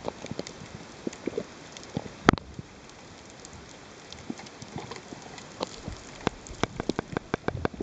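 Underwater crackle: scattered sharp clicks over a steady hiss, with one loud click a little over two seconds in and the clicks coming thicker near the end.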